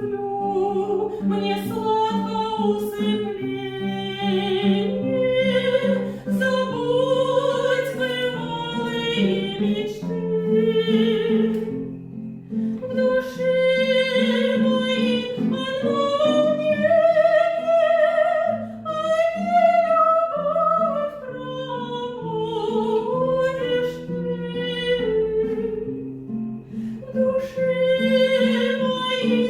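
A woman singing a classical romance in operatic style with strong vibrato, over an instrumental accompaniment of held chords. The vocal line pauses briefly about twelve seconds in and again near the end.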